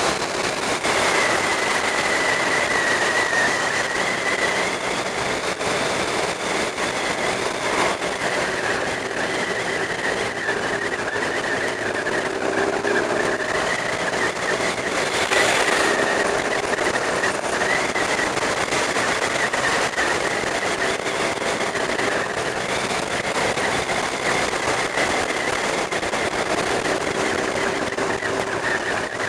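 Sport motorcycle running at road speed, its engine note wavering a little with the throttle under a steady rush of wind on the helmet-mounted camera's microphone. The sound swells briefly about halfway through.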